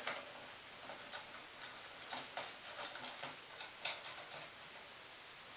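Faint, irregular clicks and taps of a flashlight mount and rifle being handled as the mount is fitted, with one sharper click about four seconds in.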